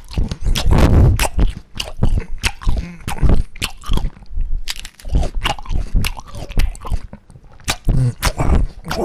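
Exaggerated dubbed eating sound effects standing for a mini watermelon being eaten whole: a quick run of loud crunching bites and chewing, with a few short pitched vocal noises mixed in.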